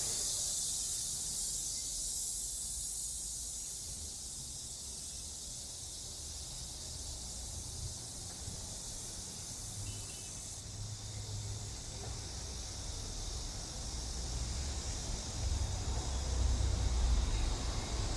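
Steady high-pitched buzzing of a summer cicada chorus; its highest part drops out about halfway through. Underneath, a low rumble grows louder near the end.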